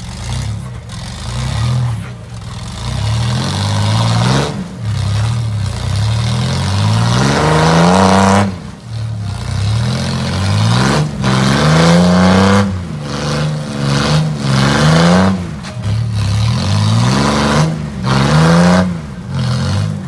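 Rock buggy's engine revving hard in repeated bursts as it climbs a steep rock ledge; each burst rises in pitch, then drops off as the throttle is let go, about seven times.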